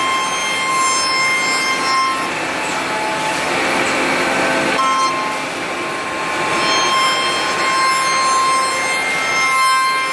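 QUICK UA-481 CNC router cutting solid wood: a steady whine from the spindle. About two seconds in, a rougher cutting noise takes over for a few seconds, then the whine returns.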